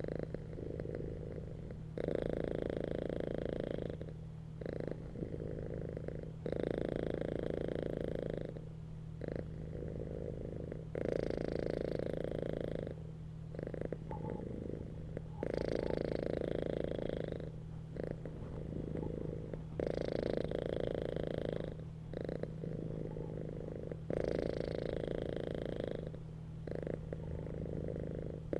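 Domestic cat purring steadily, alternating between louder and softer stretches about every two seconds.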